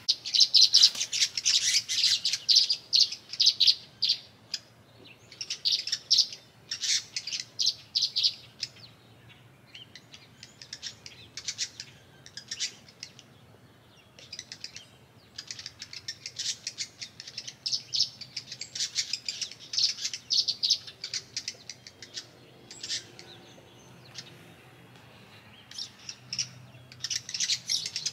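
Small songbirds chirping: quick series of high chirps in bouts of a few seconds, with short pauses between, loudest at the start.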